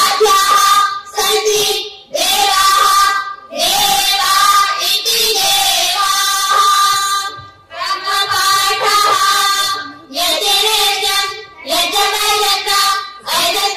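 A group of young girls singing together in unison. The melody comes in phrases of one to three seconds, with short breaths between them.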